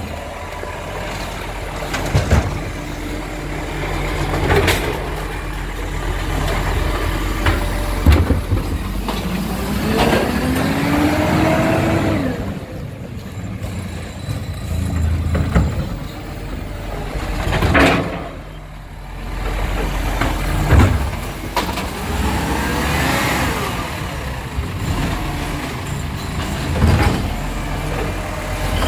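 Side-loader garbage truck's diesel engine running as it moves along the kerb, revving up about ten seconds in. Several short sharp hisses are typical of its air brakes.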